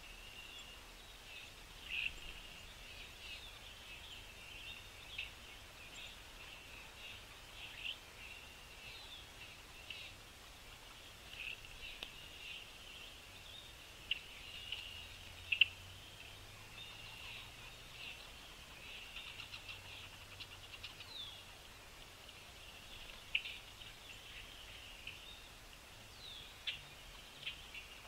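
Small birds chirping: many short, high chirps overlapping without pause, with a few louder, sharper chirps standing out.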